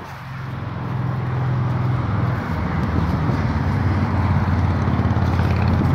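An engine running, getting louder over the first two seconds and then holding steady as a low rumble.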